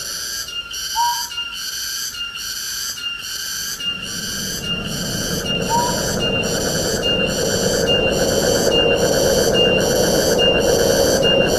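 Wind through forest trees, a hiss that swells a few seconds in, under a rhythmic chorus of insects pulsing about one and a half times a second. A short rising whistled bird call sounds twice.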